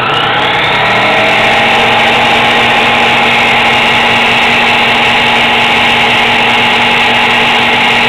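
Ninja countertop blender's motor spinning up and running steadily on speed 2, its blades churning frozen banana chunks into banana ice cream. The pitch rises over about the first second, then holds.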